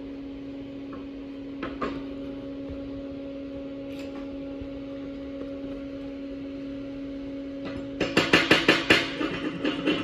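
Steady low electrical hum with a couple of faint clicks. About eight seconds in, a hand tool starts working rapidly over the steel weld coupon, about four to five loud strokes a second, cleaning the 7018 weld bead.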